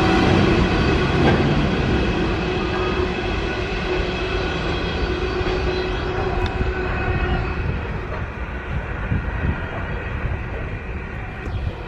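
A freight train's hopper wagons rolling away along the line, with wheel-on-rail rumble and a steady ringing from the rails. It fades steadily as the train recedes, and the ringing dies out a little past halfway.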